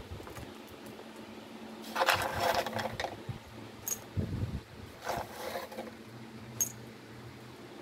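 Hands working in a potted dish garden among pebbles, shells and plant leaves: two stretches of rustling and scraping, and a few sharp clicks, over a steady low hum.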